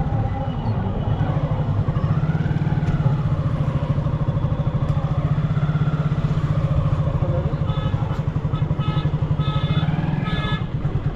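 Motorcycle engine running steadily while being ridden, a low, fast-pulsing hum. In the last few seconds comes a run of short beeps.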